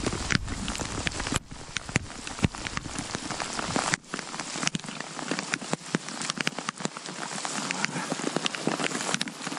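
Heavy downpour falling on a lake, a dense hiss of rain with many sharp ticks of drops striking close by. A low rumble underneath drops away about four seconds in.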